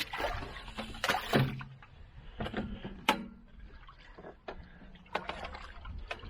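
Irregular knocks, clicks and scraping, sharpest about a second in and about three seconds in.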